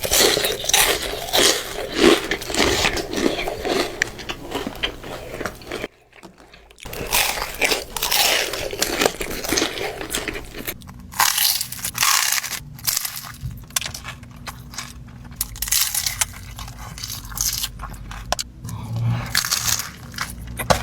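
Close-miked crunching and chewing of a deep-fried Ilocos empanada's crisp orange shell: repeated crackly bites and chews, with a short pause about six seconds in.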